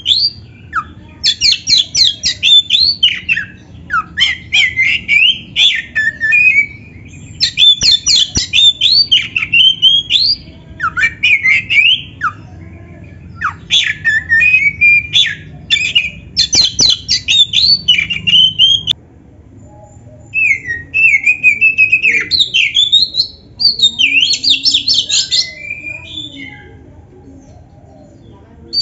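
Oriental magpie-robin in full song: rapid runs of short repeated notes and sliding whistles in dense phrases, with brief pauses, the longest about two-thirds of the way through.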